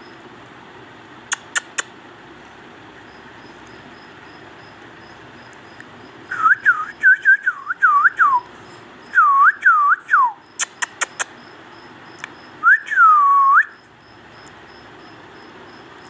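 Clear whistling in short swooping notes that dip and rise, in two quick runs and then one longer note that falls and holds low. A few sharp clicks come before and between the runs.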